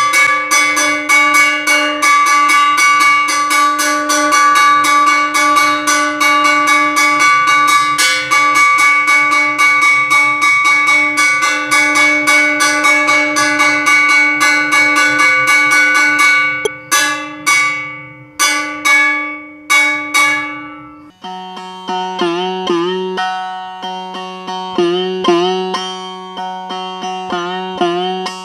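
A bell struck rapidly and steadily over and over, ringing on. After about 16 seconds it slows to a few last spaced strikes that die away. About 21 seconds in, a plucked string instrument takes over, playing short notes that bend in pitch.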